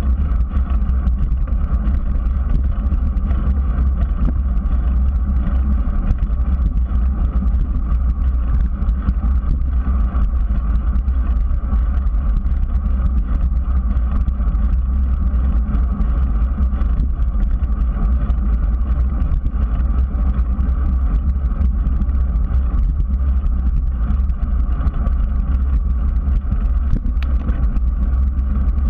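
Steady, loud rumble of wind buffeting and road vibration picked up by a bicycle-mounted GoPro while riding on an asphalt path, strongest in the deep bass, with tyre noise on the pavement beneath it.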